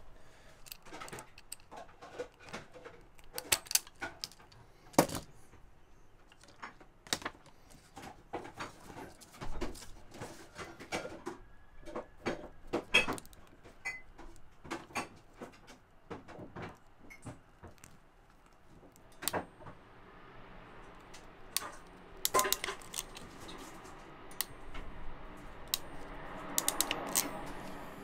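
Scattered, irregular sharp clicks and small metallic clacks from hand tools and electrical wire being handled while heat-shrink butt connectors are crimped onto the wires.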